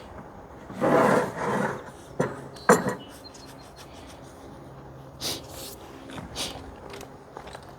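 Scraping and knocking of hand work in wet cement: a loud scrape about a second in, two sharp knocks soon after and a few softer ones later.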